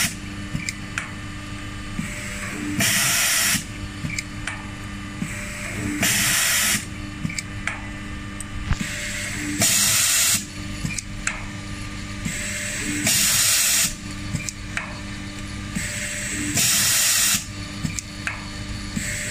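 Haeger PEM self-clinching fastener insertion machine with automatic feed, cycling: a short hiss of compressed air about every three and a half seconds, five in all, over a steady machine hum with light clicks between, as each M3 nut is fed and pressed into the sheet.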